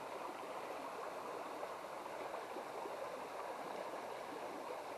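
Shallow river water flowing steadily.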